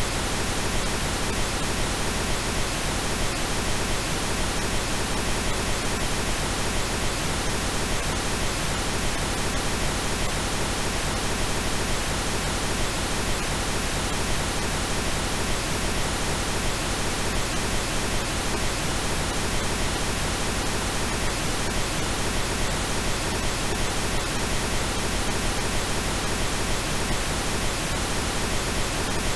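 Steady computer-generated pink noise: an even hiss spread across all pitches that does not change.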